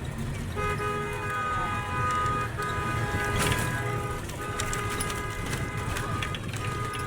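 A vehicle horn sounding several steady pitches at once, held in four long blasts with short breaks between them, over a low rumble of traffic.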